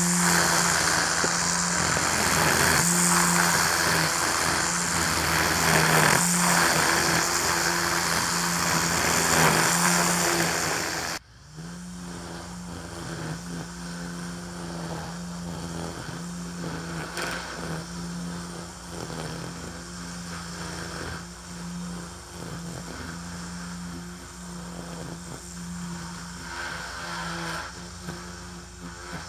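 Ryobi 40V battery string trimmer running, its electric motor giving a steady whine with brief dips as the spinning line cuts through tall centipede grass. About eleven seconds in the sound drops suddenly to a quieter, farther-off version of the same trimmer.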